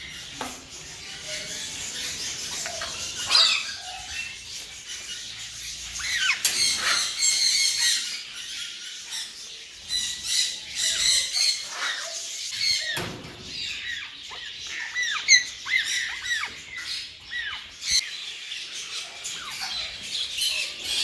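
A crowd of aviary birds calling at once: many overlapping chirps and short squawks, some gliding down in pitch, with louder sharp calls about three seconds in and again near fifteen seconds.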